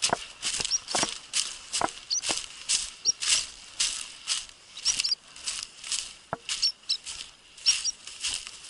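Footsteps through dead dry grass, a rustling step about two to three times a second, a few landing with a low thud, with faint, short, high squeaky chirps scattered throughout.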